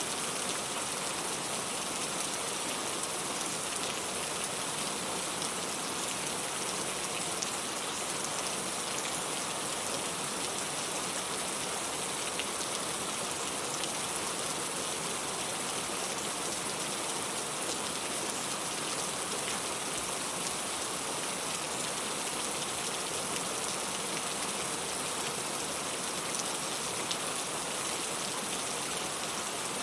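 Steady rain falling: an even, unchanging hiss flecked with faint drop ticks.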